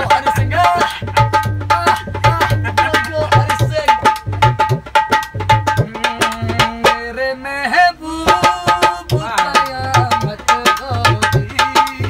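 A dholak drum played with both hands in a fast, steady folk rhythm, deep bass strokes alternating with sharp slaps, while a man sings over it. The singing holds one long note past the middle.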